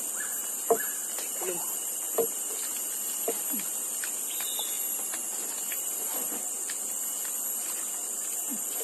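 Insects chirring in a steady high-pitched drone, with a few short knocks about one and two seconds in.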